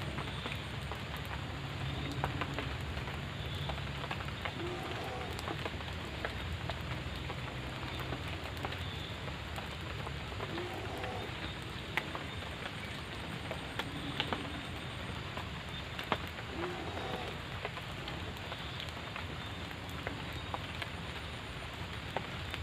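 Steady rain falling, a continuous hiss with many scattered sharp drops tapping. Faint short sounds recur every two to three seconds behind it.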